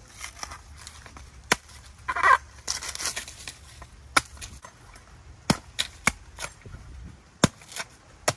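Machete chopping into the husk of a green coconut: about seven sharp, separate strikes, spaced out at first and closer together in the second half, making the first cuts to start peeling it. A short, louder noisy burst comes about two seconds in.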